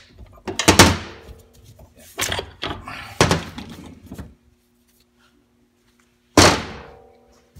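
Heavy metal clunks from transmission parts and tools being handled during a 4L80E teardown: four loud knocks, about a second apart and then one after a pause. The last one rings briefly.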